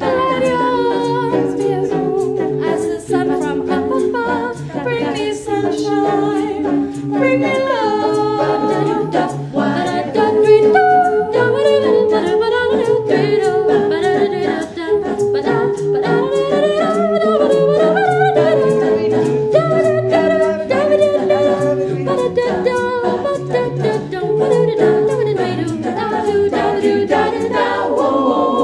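Background music: a group of voices singing a cappella in harmony, with several held notes sounding together.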